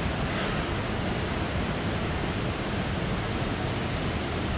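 Steady, even rush of fast-flowing water.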